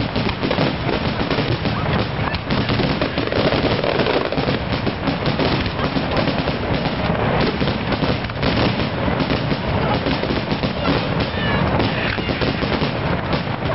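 Aerial fireworks display in a dense, continuous barrage: rapid overlapping bangs and crackling with no pause.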